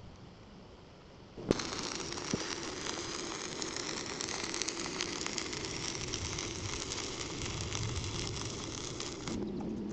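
Stick welding arc struck with a sharp crack about a second and a half in, then the steady crackle and sizzle of the burning electrode for about eight seconds. Near the end the arc stops and a steady low hum takes over.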